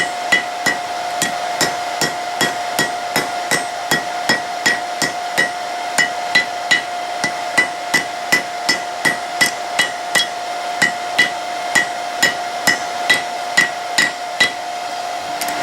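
Blacksmith's hammer striking hot high-carbon steel on an anvil in a steady rhythm of about two to three blows a second, each blow ringing, as the striking surface of a steel fire striker is compressed. A steady hum runs underneath.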